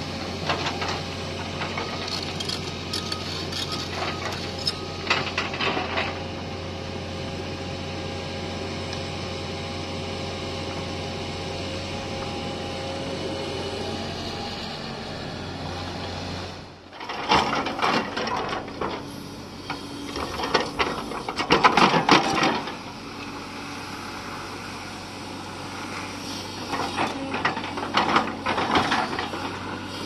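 A JCB 370 crawler excavator's diesel engine running steadily while the machine works, with scraping and clicking of the bucket and tracks in earth. After a sudden break about halfway, louder repeated knocks and rattles of the bucket digging soil and stones over the engine.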